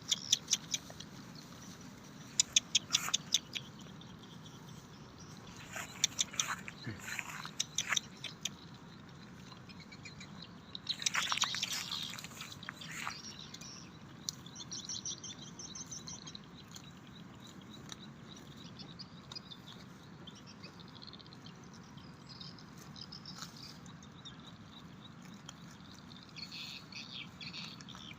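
Small birds chirping and twittering, with several clusters of rapid sharp ticks, the loudest about 11 to 13 seconds in, over a steady low outdoor background.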